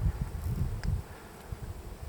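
Wind rumbling on the microphone, with light rustling and a few soft thumps of footsteps through dry fallen leaves.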